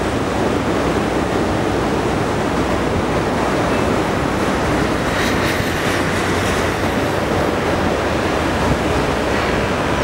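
Ocean surf breaking on the shore, a steady rush of noise.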